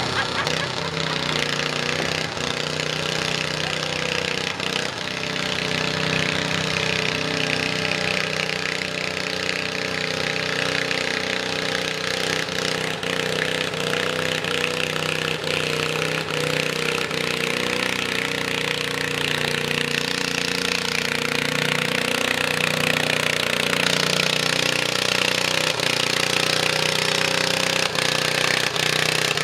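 Garden tractor engine running hard under load as the tractor pulls a weight-transfer sled down a dirt track. It is a steady, rattly engine note that gets somewhat louder in the second half.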